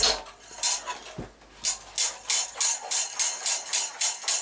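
Moped frame with its built-in fuel tank being shaken back and forth, about three shakes a second: rust-remover liquid sloshing inside the tank and the frame and fittings rattling, so that the acid wets every inside wall.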